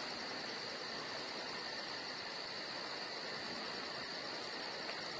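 Insects chirring steadily in a chorus, with a very high, fast pulsing chirp repeating about five times a second over a constant shrill drone.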